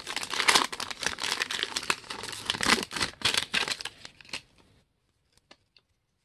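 Foil trading-card pack wrapper being torn open and crinkled, a dense crackling and tearing that stops about four and a half seconds in, followed by a few faint ticks.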